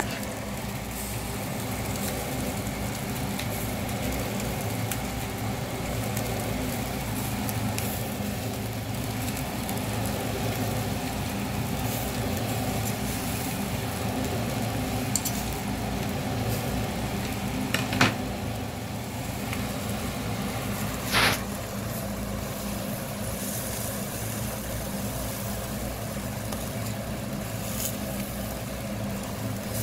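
Eel sizzling on a charcoal grill grate over a steady low hum, with two short sharp clinks a few seconds apart past the middle as tongs turn the pieces.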